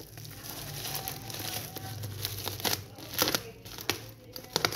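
Black plastic package wrapping crinkling and tearing as it is picked open by hand and with a sharp tool, with a few sharper rustles in the second half.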